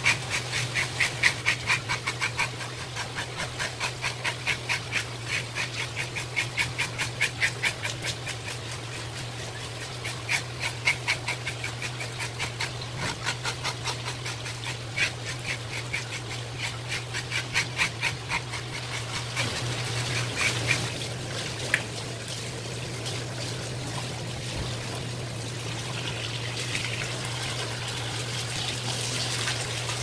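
Scales being scraped off the skin of a large wild yellowtail (Japanese amberjack) with a metal scaler, in quick rasping strokes about two to three a second. From about twenty seconds in the scraping thins out and water running from a hose rinses the fish, over a steady low hum.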